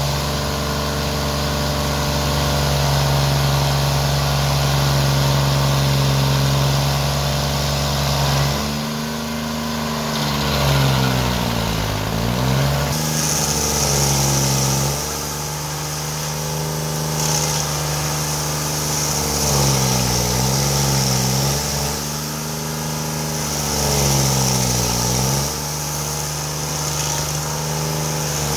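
SP7015 stump grinder's petrol engine running hard while its cutter wheel grinds into a stump; the engine pitch sags and recovers three times as the wheel bites into the wood under load. A steady high hiss joins about halfway through.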